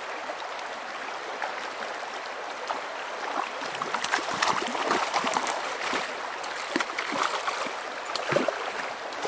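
Fast river riffle running steadily, with irregular splashing from about three and a half seconds in as a hooked brown trout is fought and brought in through the current.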